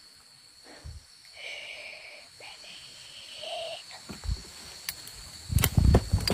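Footsteps thudding and rustling through undergrowth, starting about five and a half seconds in, as someone moves off quickly. Before them there is a steady high insect drone and a faint, drawn-out call from something unseen.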